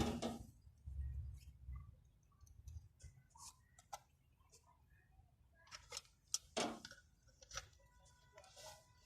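Faint, scattered clicks and light taps of small hand tools and wiring being handled; no engine is running.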